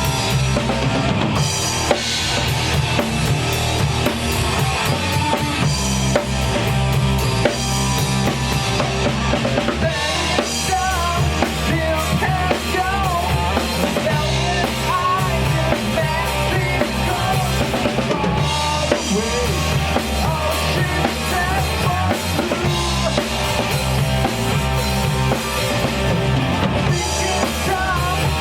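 Rock band playing live: a drum kit with kick and snare driving a steady beat under a dense wall of bass and electric guitar. Through the middle a lead melody slides and bends in pitch above the band.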